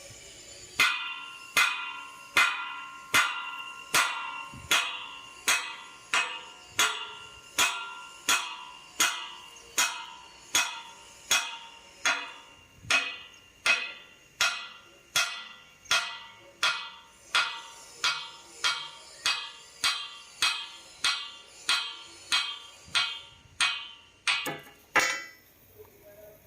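Steady hammer blows on steel, roughly one every 0.8 seconds, each strike ringing briefly, ending with a quick cluster of blows.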